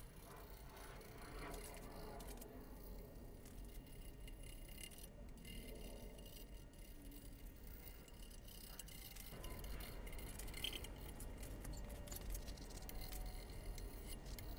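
Faint scraping of a carbide-tipped gasket scraper along the deck of a 5.3 LS V8 engine block, with light scratches and clinks as old head-gasket residue is scraped off.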